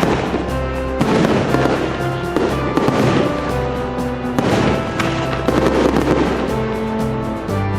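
Fireworks crackling and bursting in repeated volleys over steady background music.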